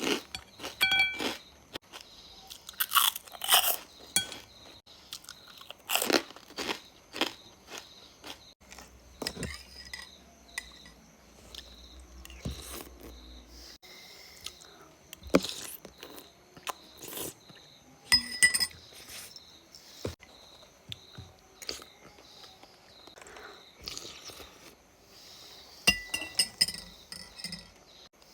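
Person chewing and crunching crisp food close to the microphone, in irregular bites and crunches, with louder bursts of crunching every few seconds.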